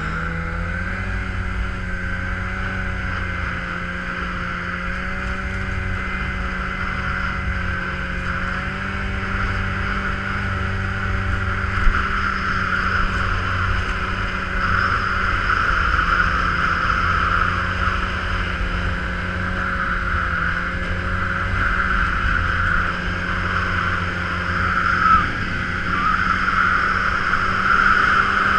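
Snowmobile engine running steadily under way, heard from on board, its pitch wavering slightly up and down as the sled crosses the snow.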